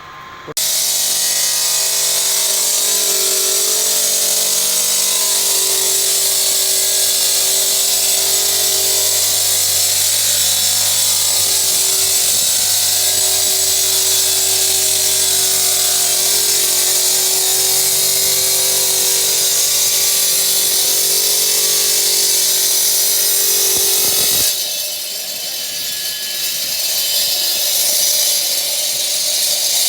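Stone cutting machine running loud and steady, its water-fed wheel grinding along the edge of a stone slab; it starts suddenly about half a second in, and about 24 seconds in the sound drops and thins to a hiss.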